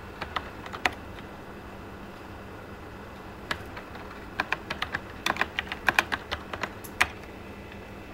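Keys clicking on a Toshiba T3200SX laptop's keyboard as DOS commands are typed. There are a few quick keystrokes at the start, then a faster run of about a dozen keys in the second half that ends on one harder press. A steady faint hum runs underneath.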